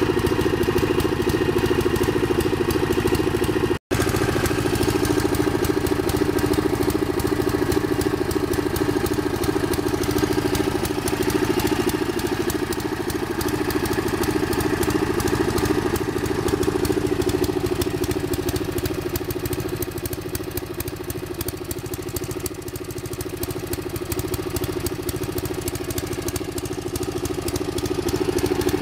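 Riding lawn mower engine, converted to run on propane, running steadily at idle. The sound drops out for an instant about four seconds in.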